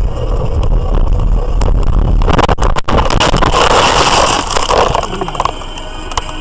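Car crashing off a snowy road into deep snow: a steady road rumble, then about two seconds in several sharp knocks and a loud rushing scrape of snow against the body lasting about three seconds, dying down near the end.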